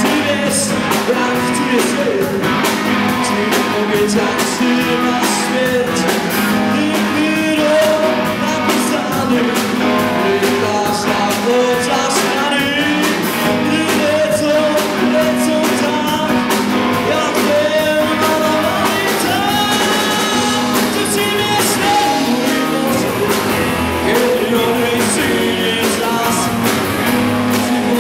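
Rock song playing: guitars and drums at a steady, loud level, with a singing voice.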